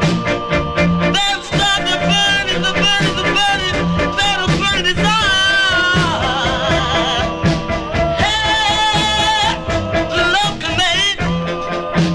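Doo-wop ballad recording: vocal-group harmony singing over a steady band backing.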